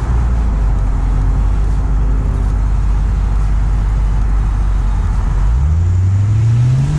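2009 Lexus IS F's naturally aspirated 5-litre V8 running at a steady low idle. About five and a half seconds in, the revs climb smoothly as the car accelerates.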